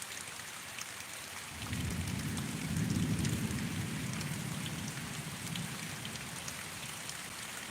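Steady rain falling, with scattered drop ticks. About one and a half seconds in, a low rumble of thunder swells, then slowly fades over several seconds.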